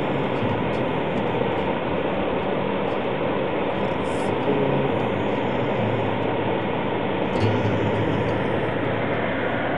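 Steady rumble and hiss of a moving vehicle, holding an even level throughout.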